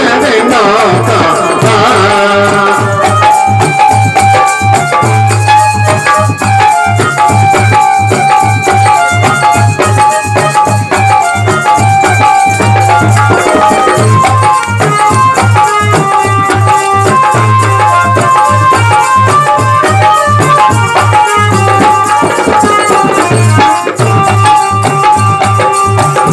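Instrumental interlude of a Hindi devotional bhajan: a melody of held, stepped notes played over a steady, rhythmic drum beat, after a wavering voice-like line fades in the first two seconds.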